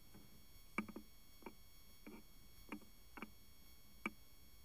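Faint, irregular clicks of typing on a smartphone's touchscreen keyboard: about ten short taps, some in quick pairs.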